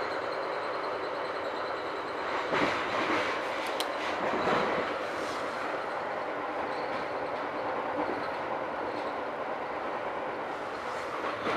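Metra Rock Island Line commuter train in motion, heard from inside a passenger car: a steady rumble of wheels on the rails, with a few louder knocks in the first half.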